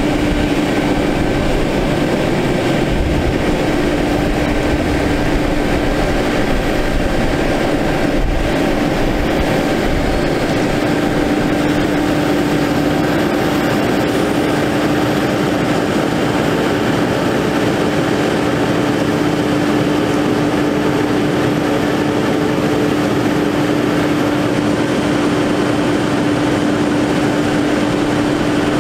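Cummins ISX diesel of a Kenworth T800 crane truck running steadily while the Altec crane's hydraulics work the boom and hoist line: a constant drone with a steady hum that never changes pitch.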